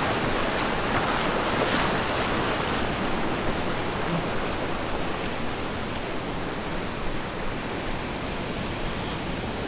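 Surf washing up over the sand at the water's edge: a steady rushing noise that eases off slightly over the seconds.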